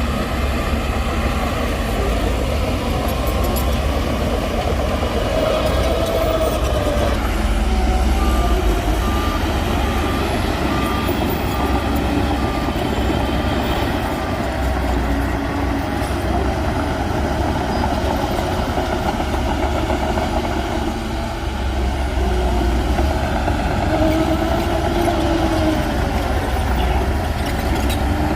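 Heavy diesel earthmoving machinery working: a deep, steady engine rumble whose pitch rises and falls under load. A reversing alarm beeps about one and a half times a second for several seconds in the middle.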